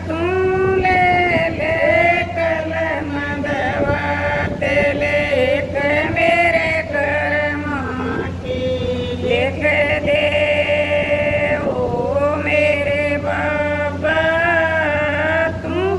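A woman singing a Hindi folk bhajan (devotional song) in a slow, chant-like melody with long held notes. A steady low hum sits underneath.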